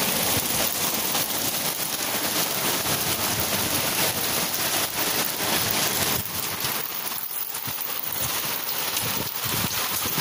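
Hailstorm of small hailstones mixed with rain, a dense steady hiss of countless tiny impacts; a little quieter from about six seconds in.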